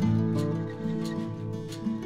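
Background music: strummed acoustic guitar over a steady, light beat.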